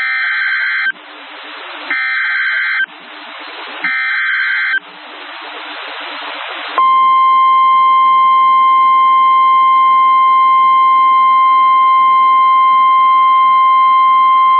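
Emergency Alert System SAME header: three buzzy, warbling digital data bursts, each about a second long and a second apart, with radio hiss between them. About seven seconds in, the steady single-pitch 1050 Hz NOAA Weather Radio warning alarm tone begins, announcing a severe thunderstorm warning.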